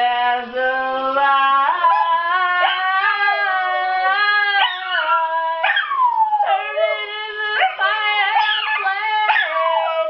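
A dog howling along with a woman singing: long, wavering howls that slide in pitch, several dropping steeply.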